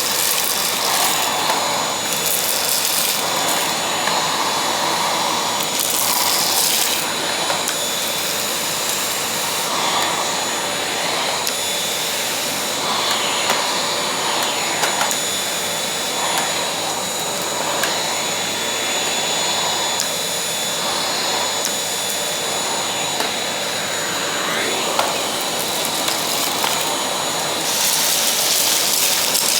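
Vacuum cleaner running steadily with a high whine, with brief surges of higher hiss several times near the start and again near the end.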